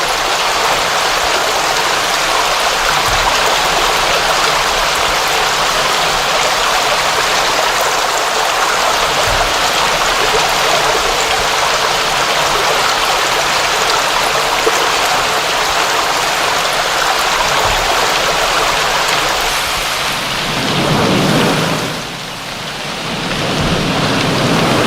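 Steady rain falling, a dense, even hiss. Near the end it briefly dips and swells with a deeper rumble.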